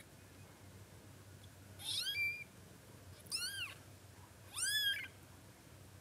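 Newborn kitten, on its first day of life, meowing three times: short, high-pitched cries, each rising and then falling in pitch, about a second apart.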